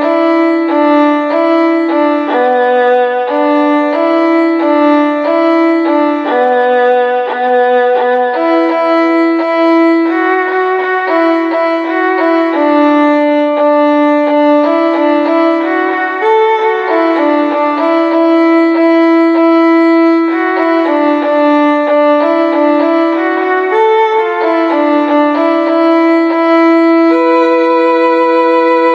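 Instrumental ringtone melody: a single line of held notes, one after another, each rich in overtones.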